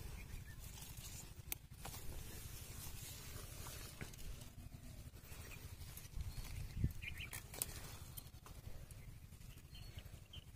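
Faint rustling of leaves and short snaps as Malabar spinach stems and berry clusters are broken off by hand, over a low steady rumble; one sharper snap about seven seconds in.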